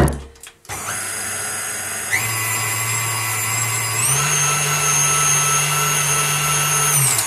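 Tilt-head stand mixer: the head is lowered with a knock, then the motor starts about a second in with a steady whine, steps up in speed twice, and cuts off near the end. The wire whisk is beating flour and milk into batter in a steel bowl.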